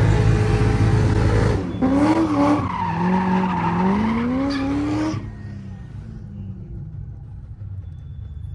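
C6 Corvette drift car's engine revving up and down, with tyres screeching as the car slides. The sound cuts off suddenly about five seconds in, leaving a quieter low rumble.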